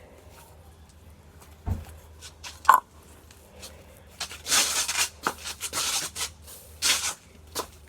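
A low thump and a sharp click, then three bursts of gritty rustling hiss as sand is worked into slime.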